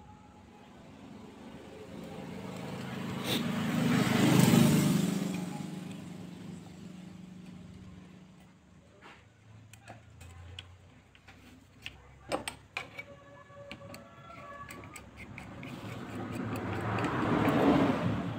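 A motor vehicle passing by, swelling up and fading away over several seconds, and a second one rising near the end. Between them come light clicks and knocks of metal parts being handled.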